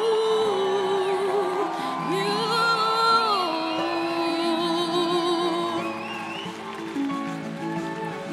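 Female vocalist singing long, drawn-out notes with vibrato and sliding runs, with no clear words, over a musical accompaniment.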